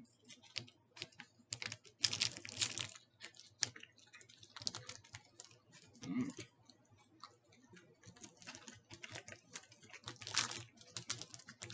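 Plastic wrapper of a Quaker Chewy granola bar crinkling and crackling as it is handled and opened, in dense bursts about two seconds in and again about ten seconds in.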